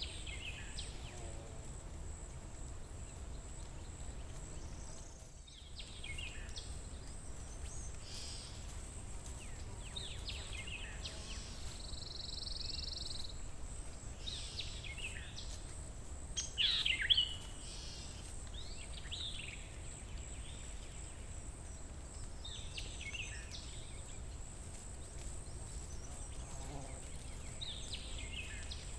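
Woodland birds calling and singing: short runs of quick falling chirps every few seconds, loudest about 17 seconds in, with a brief buzzy trill near the middle. Under them lie a steady low rumble and a constant thin high hiss.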